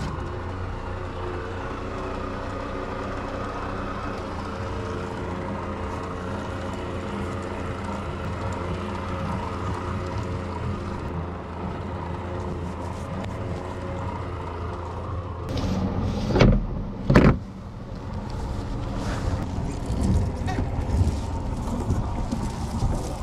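Two-stroke outboard motor on a small wooden boat running steadily under way with a constant drone. Two loud, brief thumps come about sixteen seconds in.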